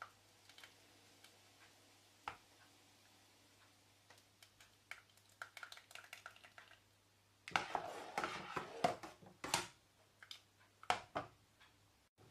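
Metal ladle stirring thick lentil soup in a stainless steel pot: faint scattered clinks and taps, with a louder stretch of clattering and stirring about two-thirds of the way through and a short clink near the end.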